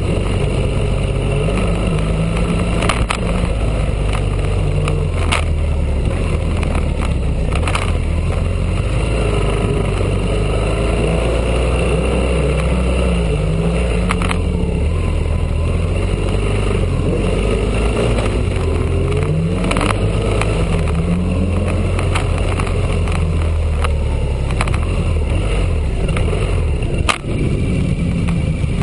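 Custom V12 motorcycle engine running while riding, heard from the bike itself; its note rises and falls with the throttle and gear changes. A few sharp knocks, the loudest near the end.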